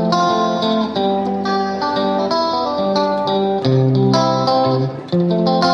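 Background music: a melody of plucked guitar notes.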